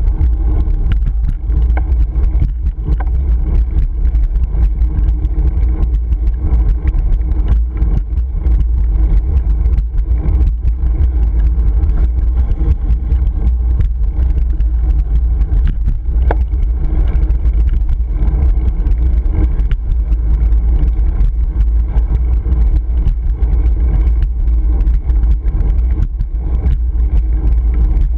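Wind buffeting the microphone of a GoPro Hero 3 on a moving road bike: a loud, steady low rumble, with frequent small knocks and rattles from the road surface.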